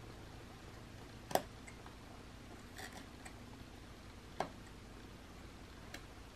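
Small carving knife making short tip cuts in a basswood figure: a few sharp snicks of the blade in the wood, two louder ones about a second and a half in and again about four and a half seconds in, with fainter ones between.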